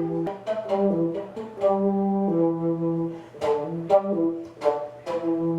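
Live looped music: a slow phrase of held low notes, each starting sharply, layered by the performer with a looper into a soundscape.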